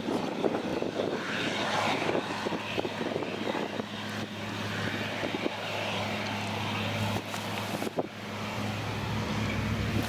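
An engine running steadily with a low, even hum, with scattered clicks and one sharp click about eight seconds in.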